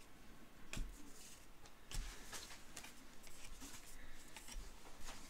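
2015 Topps Valor football trading cards being handled and flipped through by hand: faint sliding and rustling, with two soft clicks about one second and two seconds in.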